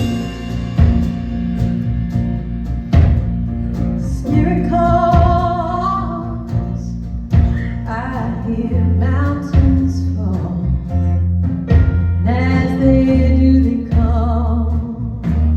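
A live band opens a song with guitar, and a singing voice comes in about four seconds in. Low bass notes join about nine seconds in.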